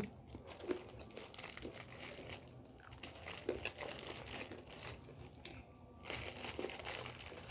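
Light, irregular crinkling of a plastic snack packet being handled, faint and crackly.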